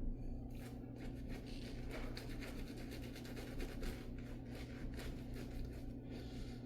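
Shaving brush bristles scrubbing lather onto the face in quick, scratchy back-and-forth strokes.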